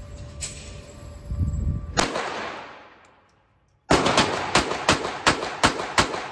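Semi-automatic handgun fired rapidly while a magazine is emptied. A single shot comes about two seconds in, then from about four seconds in a quick string of shots follows at roughly three a second.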